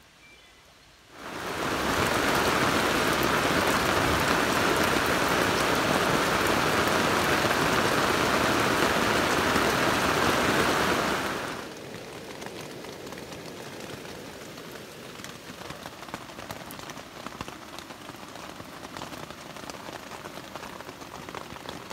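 Rain falling on a tent fly, heard from inside the tent: loud and steady for about ten seconds, starting suddenly about a second in, then dropping to much lighter rain with scattered drips on the fabric.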